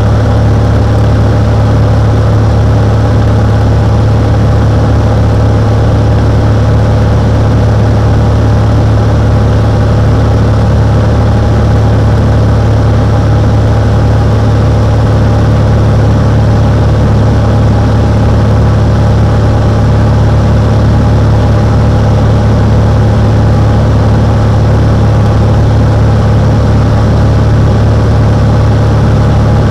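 Cessna 182's six-cylinder piston engine and propeller running loud and steady, a low hum that holds the same pitch throughout.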